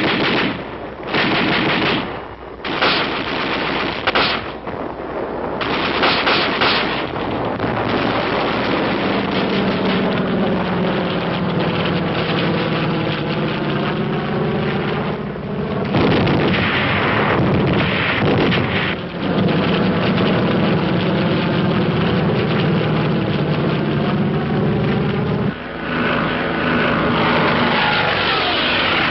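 Bursts of automatic gunfire over the first several seconds. Then the piston engine of a propeller fighter plane, an F4U Corsair, runs loud and steady, its pitch sliding up and down as it flies past, with another falling pass near the end.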